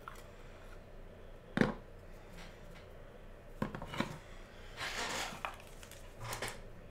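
Hands handling small cardboard boxes and a stack of trading cards on an aluminium case: a sharp tap about a second and a half in, a couple of knocks around four seconds, a brief rustling scrape about five seconds in, and another tap near the end.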